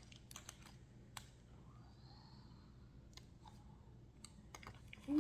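Faint, scattered clicks and taps of small plastic pieces being handled, as a small plastic mystery toy and its packaging are worked open.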